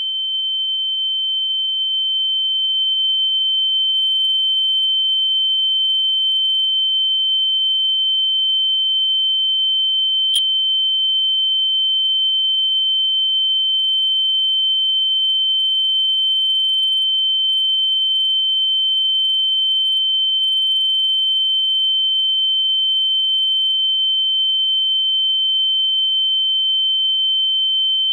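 A steady, high-pitched pure electronic tone, held at one unchanging pitch, with a single faint click about ten seconds in.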